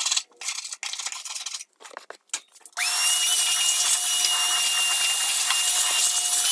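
Irregular scraping strokes of a hand tool on the rusty, grime-caked metal bottom of a grill firebox. About three seconds in, a small electric motor starts and runs with a steady high whine.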